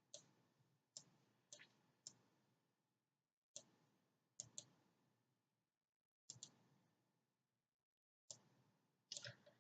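Computer mouse clicking: faint single and double clicks at irregular intervals, with near silence between them.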